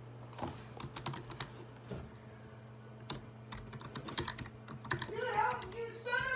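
Irregular light taps and clicks of fingers handling the phone, then a child's voice for about a second and a half near the end.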